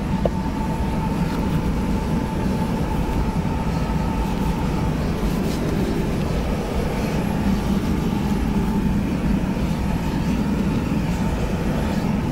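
Steady hum and rush of air from a parked jet's cabin air system, with a thin steady whine running through it.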